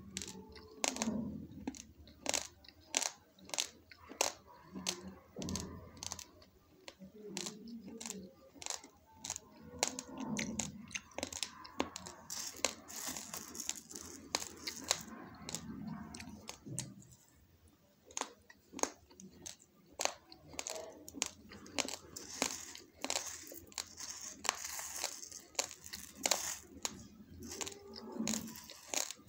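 Raw basmati rice being stirred and scooped with a plastic spoon in a steel plate: the grains rustle and give many small, sharp clicks against the spoon and plate.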